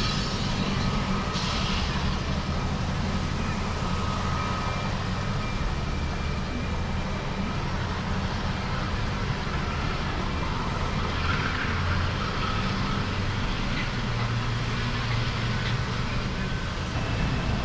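Train running past with a steady low rumble.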